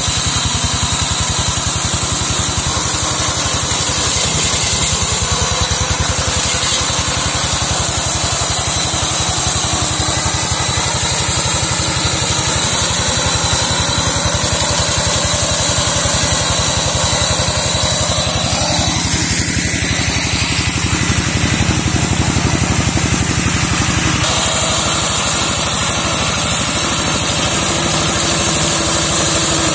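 Engine of a walk-behind two-wheel tractor running steadily under load as its mower attachment slashes through undergrowth. The sound changes abruptly about 24 seconds in.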